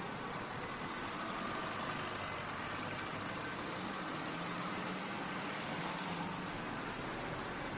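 Steady motorway traffic noise: cars and heavier vehicles going past, tyre and engine noise blending into a continuous rush, with a low engine tone from a heavier vehicle standing out in the middle.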